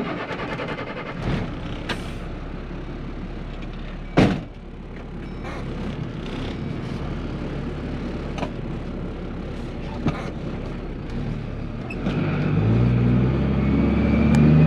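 Dump truck's diesel engine idling, heard from inside the cab, with one short sharp sound about four seconds in. Near the end the engine revs up and its note climbs in steps as the truck pulls away.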